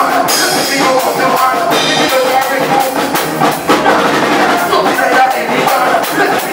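Soca band playing, with a drum kit keeping a steady driving beat under pitched instruments.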